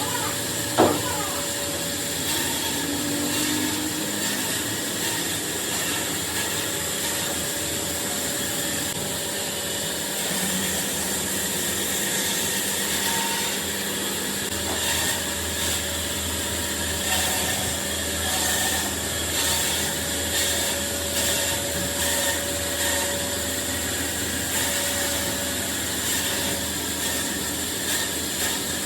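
Steady machine hiss of woodworking machinery running, with a sharp knock about a second in and lighter knocks and clicks scattered through.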